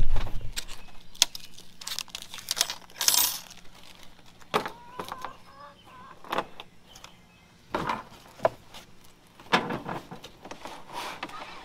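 Unpacking an add-on door blind kit: a thump at the start, then scattered clicks, light rattles and scraping as the plastic blind frame and foam packing are handled against the cardboard box.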